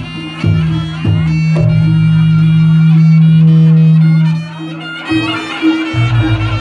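Reog Ponorogo gamelan accompaniment: a nasal reed melody from the slompret over drum strokes, with a deep gong tone that rings for about three seconds from a second and a half in.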